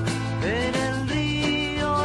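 Background music: a melody that slides up into its notes, over a steady bass line.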